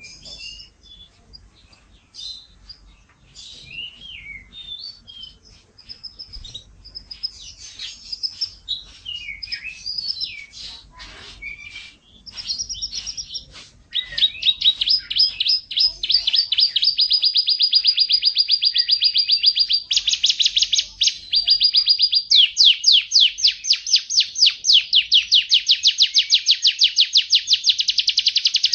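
Domestic canary singing: varied chirps and whistled phrases for about the first half, then long fast trills of rapidly repeated notes, loudest in the second half.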